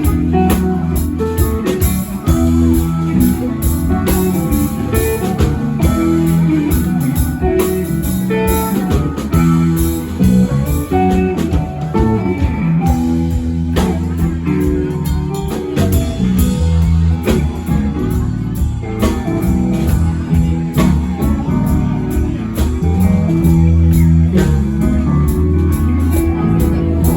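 A band playing a song, with guitar over a steady bass line and drums.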